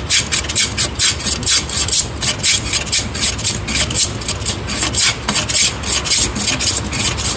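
Hand plane shaving old white oak in short, quick strokes, about three a second, each stroke a rasping scrape of the iron cutting across the grain.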